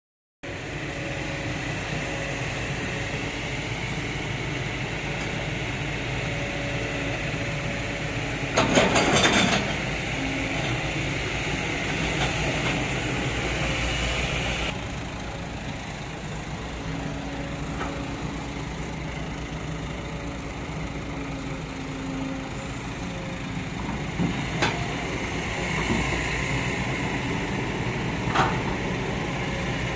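Kobelco hydraulic excavator's diesel engine running steadily with a hum. About nine seconds in, a loud burst lasting about a second as a bucketful of soil drops into the steel dump-truck bed, and two sharp knocks in the last few seconds.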